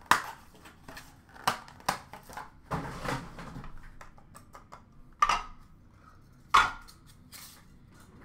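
Clear hard-plastic card cases clacking and knocking together as they are picked up and moved in a plastic bin, with five sharp clacks and a short scrape of plastic.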